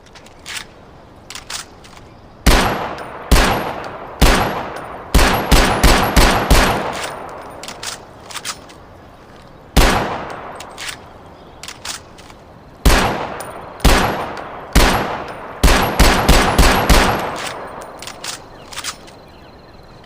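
Mauser M712 Schnellfeuer machine pistol firing: single shots a second or less apart, then a short rapid burst of about six rounds, and the same again after a pause, each shot echoing. Faint clicks come between the groups of shots.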